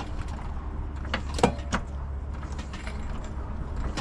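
Metal tools and parts being handled while working under a car: a few sharp clicks and knocks, three close together a little past a second in, the middle one loudest, over a steady low hum.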